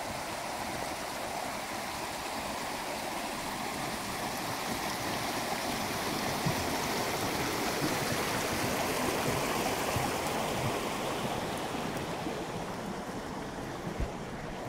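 A creek rushing over rocks: a steady wash of water that swells and then fades away. A low thump comes near the end.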